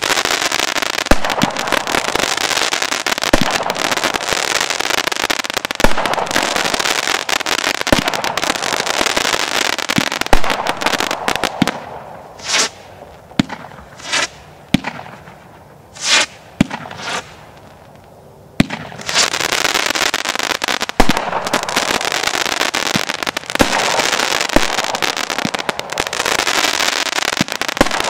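World Class Fireworks 'Stadium Pride' 500-gram, 25-shot firework cake firing its shots in sequence: sharp reports over dense crackling. About halfway through it thins to three or four separate bursts, then the dense crackling returns.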